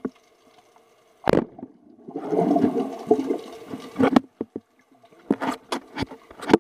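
Muffled underwater rushing and gurgling of water and air bubbles for about two seconds, after a single sharp knock about a second in, with a run of clicks and knocks near the end.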